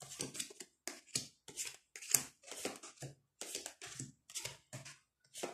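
Tarot cards being drawn from the deck and laid out by hand: a quick, irregular run of short papery snaps and slides, several a second.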